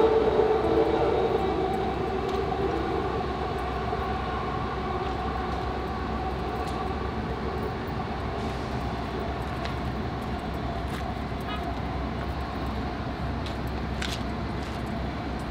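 AirTrain JFK automated people-mover cars running along an elevated guideway: a steady whine of several held tones over a rumble, easing a little over the first few seconds.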